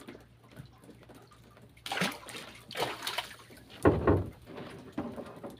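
Water splashing and sloshing in a few short bursts, the loudest about four seconds in.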